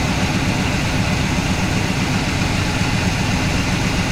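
International Harvester wrecker's V8 gasoline engine idling steadily. The spark is weak on all cylinders, which the owner puts down to a weak ignition coil.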